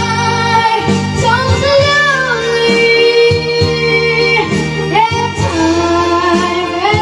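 A high-pitched singing voice holding and gliding between long notes over an instrumental accompaniment with a steady beat.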